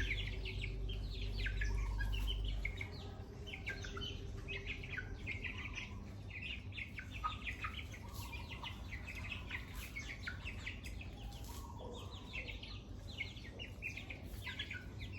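Birds chirping continuously, many short chirps overlapping, with a low rumble for the first few seconds.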